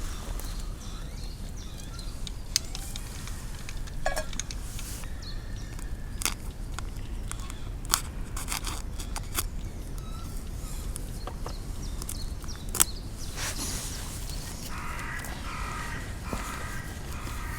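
Scattered sharp clicks and knocks of camp cooking kit being handled, over a steady low rumble, with a short pitched call near the end.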